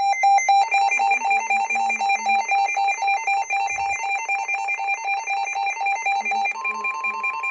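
Weather-radio emergency alert tones: a rapid, evenly repeating two-pitch electronic beeping, joined about six and a half seconds in by a steady single tone, the 1050 Hz NOAA Weather Radio warning alarm tone that comes before a broadcast warning. A brief low thump sounds just before four seconds in.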